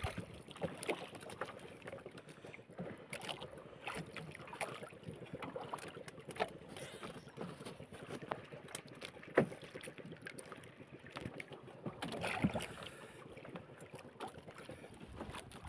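Water lapping against a small fishing boat's hull, with scattered small knocks and clicks from the boat and the fishing gear being handled.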